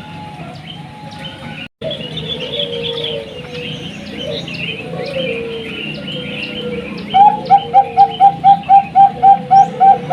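Zebra dove (Bangkok-type perkutut) cooing, with small birds chirping high in the background and a brief break about two seconds in. About seven seconds in, a loud, rapid run of short, evenly spaced cooing notes begins, about five a second.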